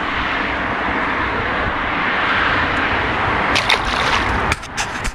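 A peacock bass splashing into the water as it is let go beside the boat: a quick flurry of splashes from about three and a half seconds in, over a steady rushing noise that drops away sharply just after.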